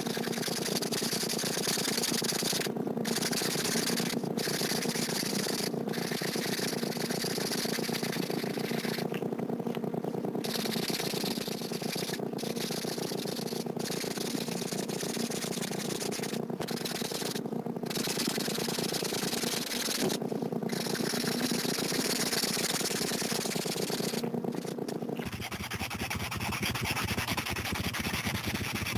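Sharpie felt-tip marker scratching across sketchpad paper in rapid back-and-forth strokes as an area is coloured in, with brief pauses now and then.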